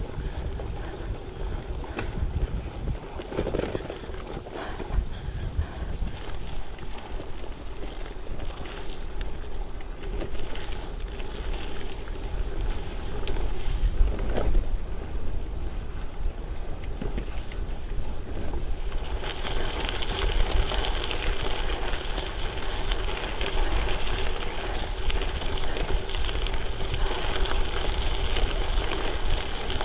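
Wind buffeting the microphone while a Lauf Anywhere gravel bike is ridden hard along dirt single track, with tyre and trail noise underneath. A brighter hiss sets in about two-thirds of the way through and holds.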